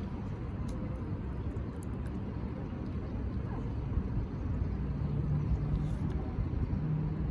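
Low, steady rumble of a motor vehicle running, with a steady low hum rising out of it about five seconds in.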